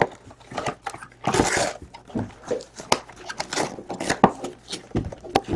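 Hands rummaging inside a cardboard box of trading-card packs. Scattered cardboard knocks and scrapes, with a longer crinkling rustle about a second and a half in.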